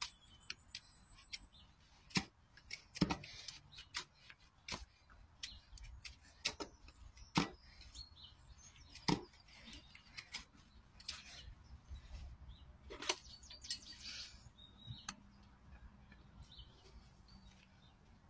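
Hoof knife paring the sole and frog of a horse's hoof: irregular sharp cutting clicks, one every second or two, with a couple of longer scraping strokes.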